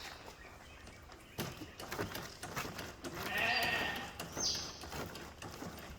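A sheep bleats once, about three seconds in, a single call lasting about a second, with scattered knocks around it.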